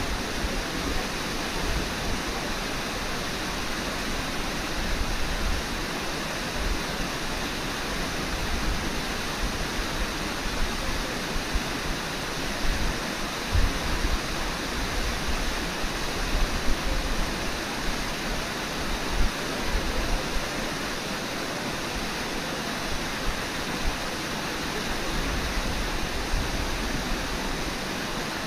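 Steady rush of a river's fast water, an even hiss with uneven low rumbles underneath.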